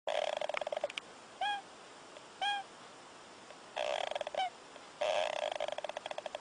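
An animal snoring: rattling, buzzing snores about a second long, broken by short high squeaks that rise and then fall. The squeaks come twice in the pause after the first snore and once right after the second.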